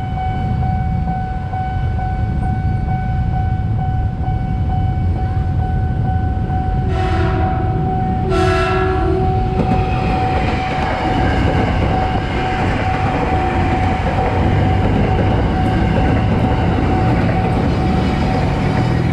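Ex-JR 205 series electric commuter train (KRL) sounding two horn blasts about halfway through, then running past over the level crossing with wheel rumble and rattle. A steady high warning tone from the level-crossing alarm sounds throughout.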